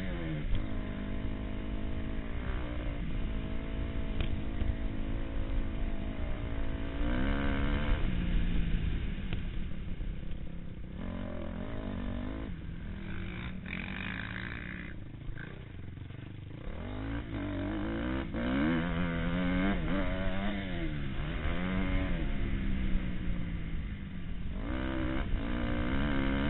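Motocross dirt bike engine heard from a camera on the bike, revving up and falling back again and again through the gears at racing speed. About halfway through the revs drop off and the sound goes quieter for a few seconds, as for a tight corner, then the engine climbs hard again.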